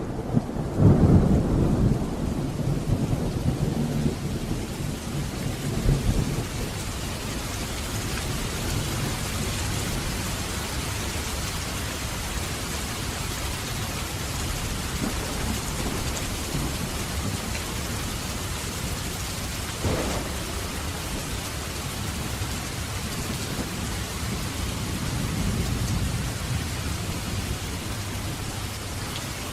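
Thunderstorm: steady rain falling, with thunder rumbling loudly through the first six seconds and then fading into the rain. A short sharp crack about two-thirds of the way through.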